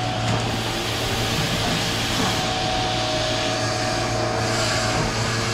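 DeLaval milking robot running in its teat-cleaning stage: a steady machine hum with a hiss of air and water.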